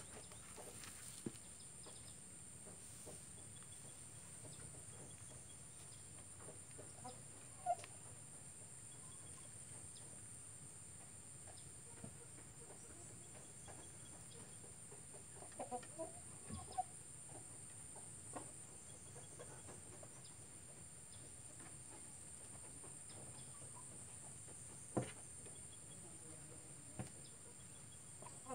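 Chickens clucking faintly now and then, with a short run of clucks about halfway through, over a steady faint high hiss. A few sharp clicks stand out, twice clearly louder than the rest.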